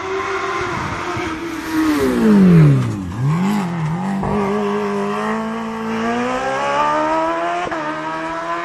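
The Suzuki GSX-R 1000 inline-four motorcycle engine of a Lancia A112 slalom prototype, running hard at high revs. About two seconds in, its pitch drops steeply; it then holds level and climbs again over the last few seconds before cutting off suddenly.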